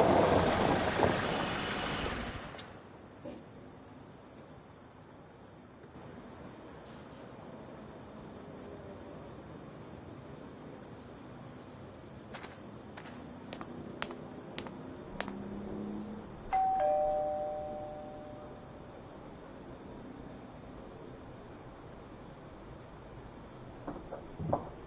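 Two-tone doorbell chime, a higher note then a lower one ringing out for about two seconds, a little past the middle. Before it, car noise fades out in the first two seconds, followed a few seconds later by a handful of sharp clicks.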